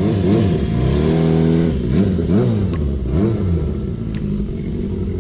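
A car engine being revved in repeated blips, its pitch rising and falling several times.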